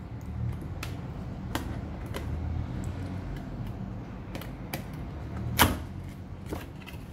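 Camera's cardboard box being handled and opened: a scattering of light taps and knocks, the loudest a little past halfway, over low rumbling handling noise.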